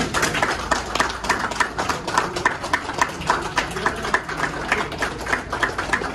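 A small group of people clapping, the individual claps distinct and overlapping in a steady patter.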